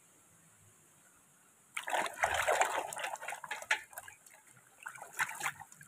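Hand swishing a toy through a metal basin of muddy water, splashing and sloshing. It starts after a near-silent second or two and thins to a few small splashes near the end.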